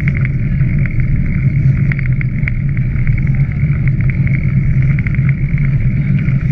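Steady, loud rumble and wind buffeting on the microphone of a camera moving along a rough towpath. Rapid rattling clicks run through it, from the mount jolting over the ground.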